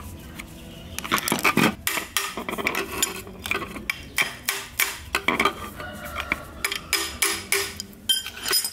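Metal tool scraping and clicking against an electric fan motor's metal housing in quick, irregular strokes, starting about a second in.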